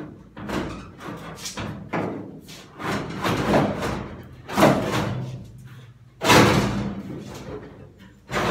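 A loose sheet-steel replacement trunk pan being shifted and worked out of a car's trunk floor: a run of metallic knocks, scrapes and rattles, with two louder bangs about halfway through.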